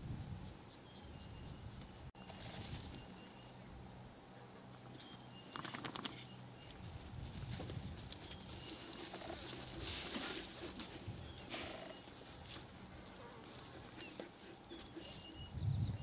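Faint bush ambience: scattered short, high chirping calls of birds, including a quick run of about six notes a few seconds in, over a low steady hum.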